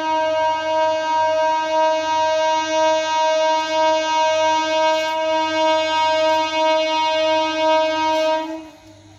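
Electric multiple unit train's horn sounding one long, steady blast on a single pitch, slightly wavering in loudness, then cutting off abruptly about eight and a half seconds in.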